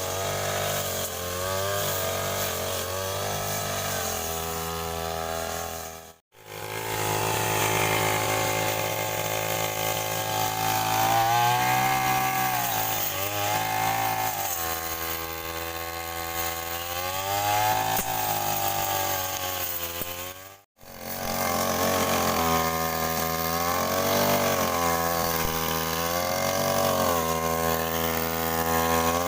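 Small petrol engine of a grass-cutting machine running while cutting grass, its pitch repeatedly rising and falling as the throttle is opened and eased. The sound breaks off for an instant twice.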